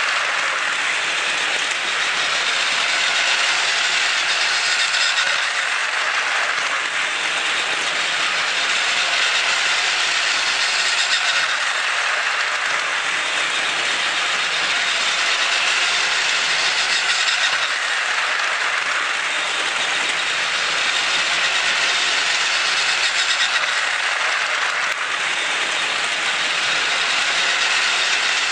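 Plarail battery toy train, its motor swapped for a Tamiya Ultra-Dash motor, running on plastic track: a steady whirring and rattling of motor, gears and wheels that swells and fades about every six seconds.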